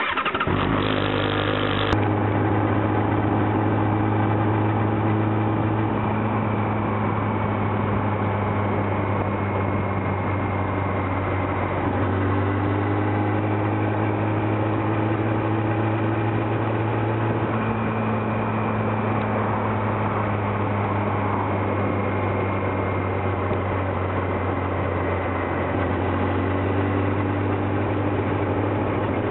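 Triumph Daytona 600's inline-four engine idling steadily. It comes in abruptly and is rougher for the first two seconds, then settles into an even hum.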